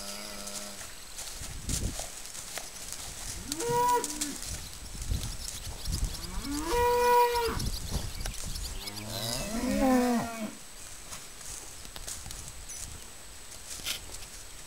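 Cattle mooing: four calls a few seconds apart, the third, about seven seconds in, the longest and loudest.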